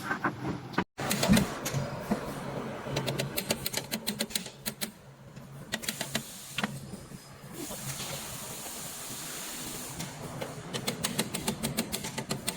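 Runs of rapid mechanical clicking or rattling, several clicks a second, over a steady hiss and low hum. A short dropout comes just before a second in.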